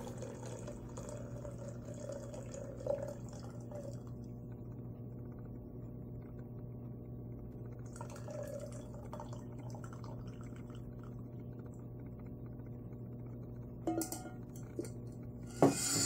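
Lemongrass-pandan tea poured from an aluminium saucepan through a metal strainer into a stainless-steel teapot: a faint pouring trickle in spells over a steady low hum. A few light knocks of metal near the end.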